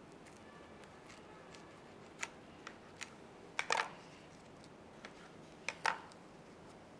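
Kitchen utensils clicking and knocking on crockery while a sandwich is being plated: a scattering of short sharp taps, with two louder clatters past the middle.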